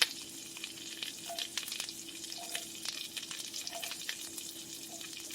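Butter and scallion whites sizzling and crackling in an over-hot pot, the butter browning from the heat, with a faint steady hum underneath.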